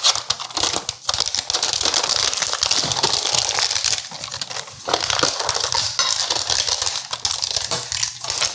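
Plastic wrapping and cardboard packaging crinkling and rustling as they are cut with a knife and pulled off a set of glass baking dishes, with many small crackles throughout.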